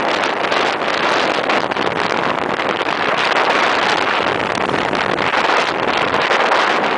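Steady rush of wind over the microphone on a moving scooter, with the scooter running beneath it.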